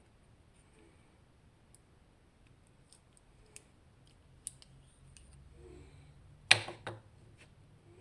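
Small metal parts of a magnetic pin-tumbler-style lock clicking and tapping as it is disassembled, scattered light clicks with a sharp, louder pair of clicks about six and a half seconds in.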